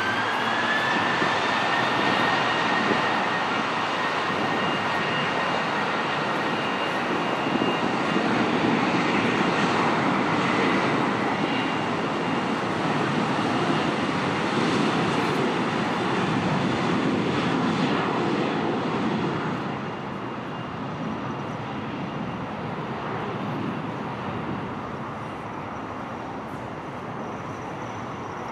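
Boeing 737-700's CFM56-7B turbofans spooling up to takeoff power: a whine rises in pitch over the first two seconds. A steady jet engine noise follows through the takeoff roll and lift-off, then grows fainter after about twenty seconds as the aircraft moves away.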